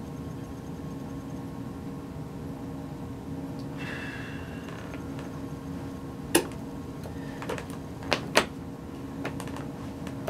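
Steady low hum in the room, with a few sharp clicks and knocks in the second half as a person shifts upright in a wheelchair, two of them close together about eight seconds in.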